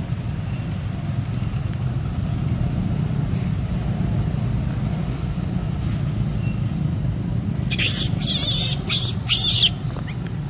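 Steady low rumble of wind on the microphone. About eight seconds in come two seconds of loud crackling rustles in dry leaf litter.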